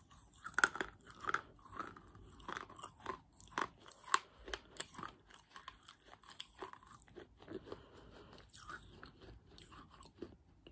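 Baked clay being bitten and chewed right at a close microphone: sharp, crisp crunches come thick and fast for the first few seconds, then give way to softer, sparser chewing.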